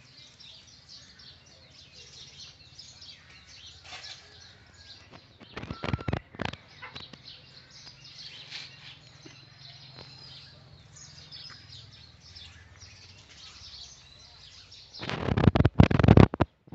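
Birds chirping in the background, broken twice by loud bursts of rustling clatter: once about six seconds in and again, louder, near the end.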